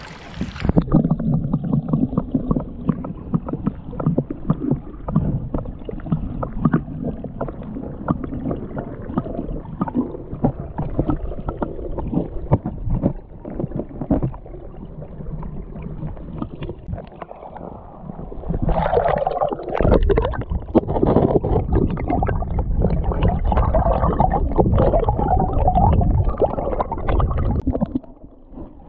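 Creek water sloshing and gurgling right at the microphone, with a dull, muffled sound. It grows louder and busier about two-thirds of the way in.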